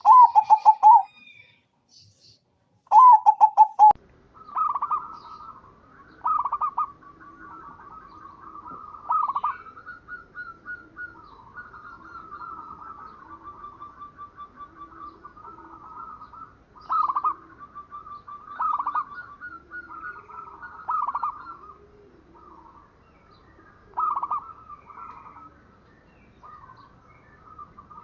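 Zebra dove cooing: rapid trilled coos pitched around 1 kHz. Two loud calls come in the first four seconds, then a long series of softer trilled coos with a louder phrase every two or three seconds.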